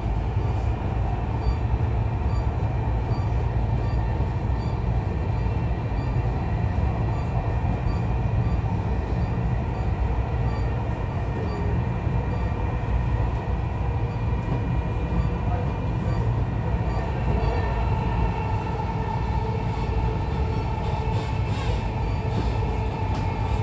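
Dubai Metro train running along its elevated track, heard from inside the carriage: a steady rumble of wheels and running gear with a faint steady whine above it.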